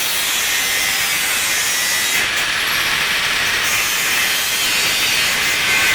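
Angle grinder working metal: a loud, steady rasping hiss with a faint whine, unbroken throughout.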